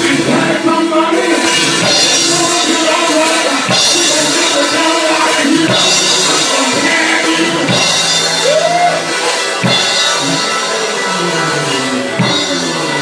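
Live church band music led by a drum kit, its cymbals close to the microphone and crashing on the beat over sustained chords.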